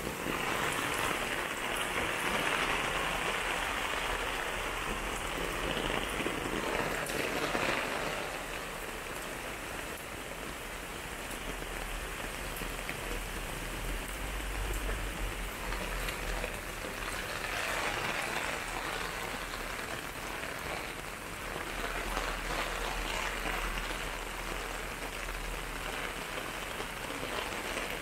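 Steady rain falling and splashing on hard surfaces. It is heavier for the first several seconds and again briefly past the middle.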